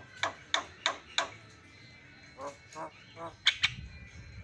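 Javan myna singing: a quick run of five sharp notes that drop in pitch in the first second or so, a few lower, throaty notes in the middle, and two loud sharp notes near the end.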